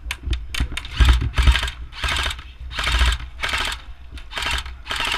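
Airsoft gun firing: a few single shots, then a string of short full-auto bursts, roughly two a second, each a fast rattle of shots.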